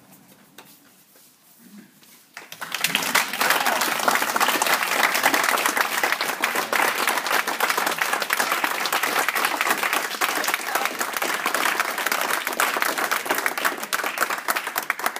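Audience applauding, the clapping starting suddenly about two and a half seconds in after a quiet moment and then continuing steadily.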